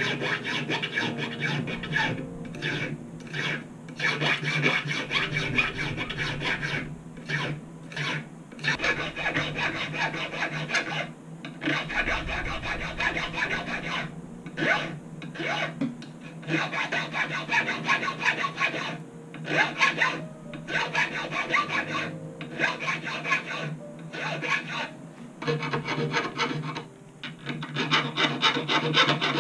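A small metal file scraping over the stainless steel frets of a guitar neck in runs of quick back-and-forth strokes, broken by short pauses every few seconds.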